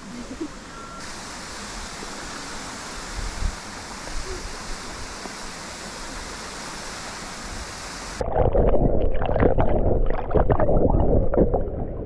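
A steady rush of water. About eight seconds in, it changes abruptly to much louder, muffled splashing and gurgling with the high end cut off.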